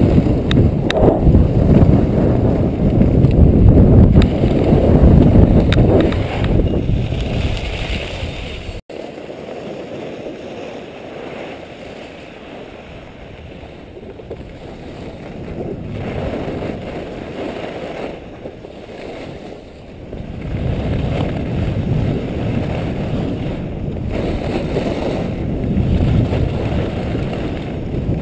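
Wind rushing over the microphone of a camera carried by a downhill skier, mixed with skis hissing and scraping on groomed snow. The rush breaks off abruptly about nine seconds in, stays quieter for a while, and builds again around twenty seconds.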